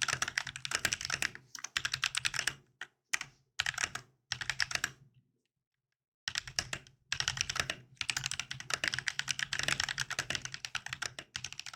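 Typing on a mechanical keyboard with KTT Matcha switches freshly lubed with Krytox 205g0: a fast run of keystrokes with brief breaks, stopping for about a second midway before picking up again.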